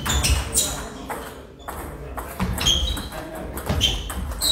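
Table tennis rally: the ball clicks off the rackets and bounces on the table in a quick, irregular back-and-forth. Each hit is a short, sharp ping.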